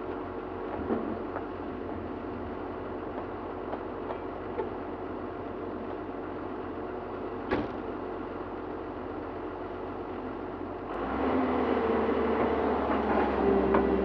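Excavator's diesel engine running steadily, with a sharp knock a little past halfway. About eleven seconds in it gets noticeably louder, with a new steady hum on top.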